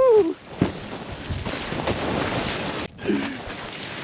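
A man shouts "Woohoo!" as he slides down a steep snowy slope, followed by a steady rushing hiss of snow and wind on the microphone. About three seconds in the rush breaks off for a moment, and a short grunt follows.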